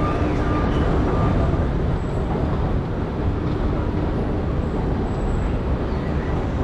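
Steady low rumble of a long metro-station escalator running while riding down it, with a faint hum that comes and goes.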